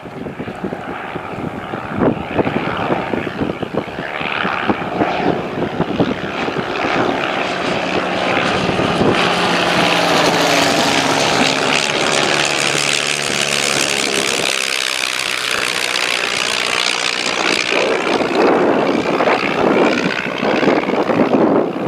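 Propeller-driven airplane flying past, its engine growing louder to a peak about halfway through and then fading away. Wind buffets the microphone near the start and end.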